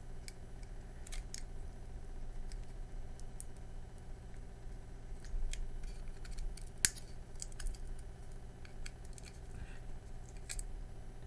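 Scattered small clicks and ticks of metal tools handling a circuit board, with one sharper click about seven seconds in, over a steady low hum.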